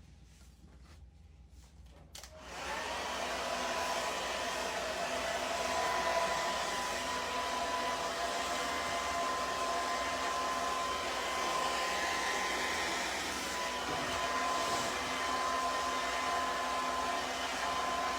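A small electric motor starts about two seconds in and then runs steadily, blowing with a thin high whine, and cuts off at the end.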